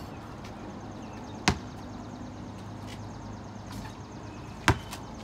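Two sharp thuds of a basketball striking a hard surface, about three seconds apart, over a steady low hum.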